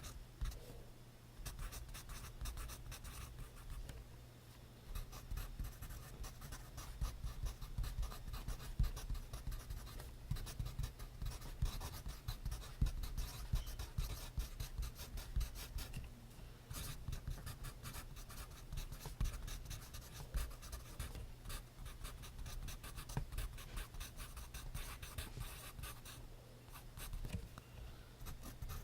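Pencil writing on paper in quick, irregular scratching strokes with brief pauses, close up.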